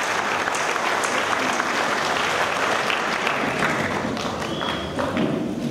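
Audience applauding after a speech, a steady clatter of clapping that thins out near the end.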